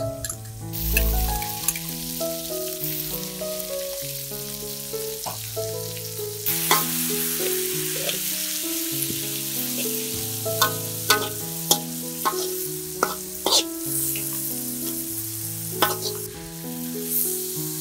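Chaya leaves and garlic sizzling in a hot wok as a metal spatula stirs them, scraping and clicking against the wok several times, the sizzle louder from about a third of the way in. Background music plays throughout.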